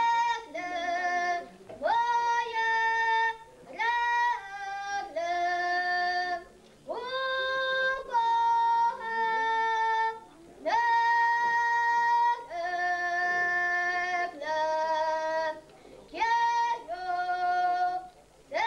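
A girl singing a Podhale highlander folk song solo and unaccompanied, in short phrases of held high notes with brief breaths between them.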